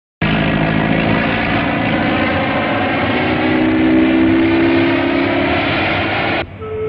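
Propeller biplane engine droning steadily on an old film soundtrack. It cuts off abruptly about six and a half seconds in as music starts.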